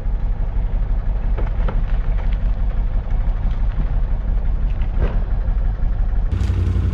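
ATV engine idling steadily, a low rumble with a few faint ticks; the rumble grows louder and fuller near the end.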